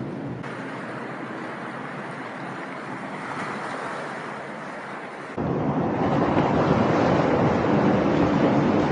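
Wind rush and road noise from a moving motorcycle, picked up by a small action camera's microphone. About five seconds in, the sound cuts abruptly to a louder, fuller version of the same ride noise, a switch between two cameras' recordings.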